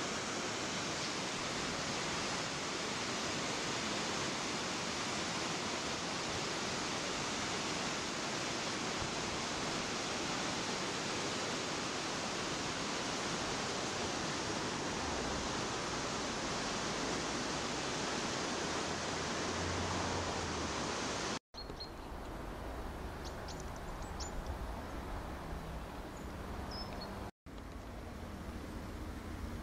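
Fast, high river water rushing and churning through whitewater at the piers of a stone bridge, a steady even rush. About two-thirds through it cuts to a quieter hush with a few faint high chirps.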